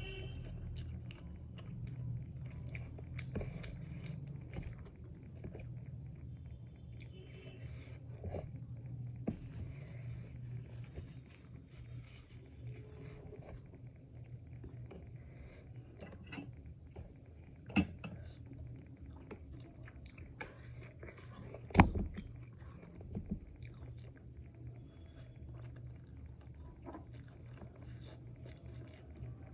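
A person chewing food close to the microphone, with many small mouth clicks over a steady low hum. There are two sharper knocks, about 18 and 22 seconds in.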